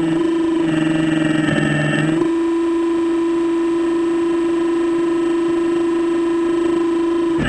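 RC hydraulic excavator working: a steady mechanical whine, with a second, lower, harsher tone layered over it from about half a second in until about two seconds in while the boom and bucket move.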